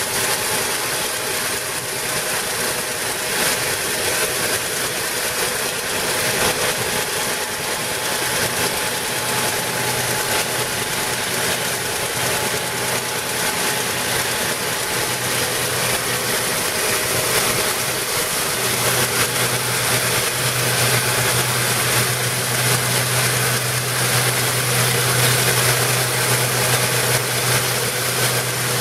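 Stripe Hog truck's high-pressure water-blasting heads and vacuum recovery running steadily as they strip a painted lane line from asphalt: a constant hiss with the truck's engine humming under it. The low hum grows stronger about two-thirds of the way in.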